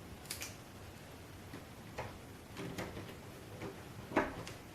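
Plastic LEGO Technic parts of a hand-built Rubik's Cube clicking and clacking as the cube's layers are twisted by hand. The sharp clicks come irregularly, about half a dozen of them, and the loudest is about four seconds in.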